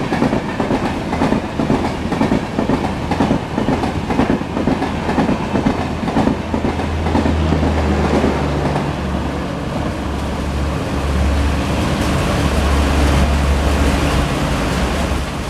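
LHB passenger coaches of an express train passing at speed, wheels clattering over the rail joints. About halfway through, the clatter gives way to a steadier low rumble.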